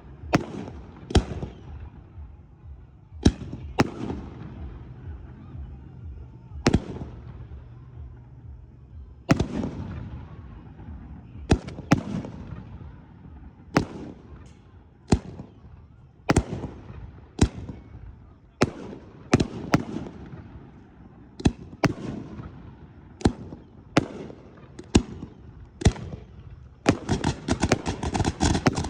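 Aerial fireworks shells bursting: sharp booms every one to two seconds, each trailing off in a rumbling echo. Near the end comes a rapid run of crackling pops.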